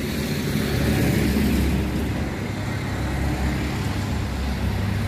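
Steady rumble of passing road traffic, swelling a little about a second in.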